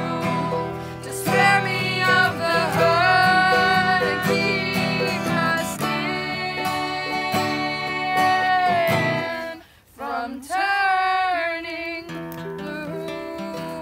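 Acoustic guitar and ukulele strumming under a sung melody of long held notes. The music drops out briefly about ten seconds in, then comes back with a rising held note.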